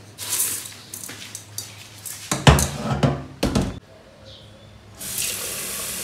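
Rice cooker inner pot with uncooked rice handled and set down in a stainless steel sink with several clattering knocks, loudest a little past halfway. About five seconds in, the tap opens and water runs steadily into the pot to wash the rice.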